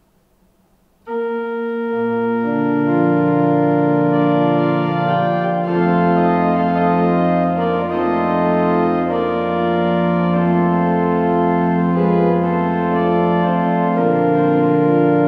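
Organ playing slow, held chords over a deep sustained bass. It comes in sharply about a second in, after a short silence. The bass note shifts twice as the harmony moves.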